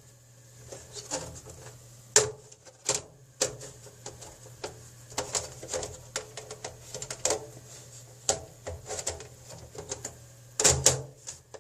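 Irregular clicks and knocks of a Dell OptiPlex GX620 ultra-small-form-factor computer case being pushed and fitted shut by hand, a part resisting going into place. Louder knocks come about two and three seconds in and again near the end.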